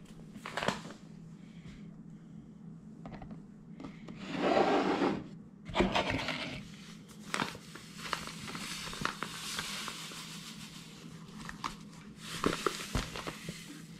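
Kitchen handling sounds: a wooden cutting board is scraped across the counter and a plastic mixing bowl is set down with a few knocks. After that comes a long stretch of rustling with clicks, and a last burst near the end as powder is poured into the bowl.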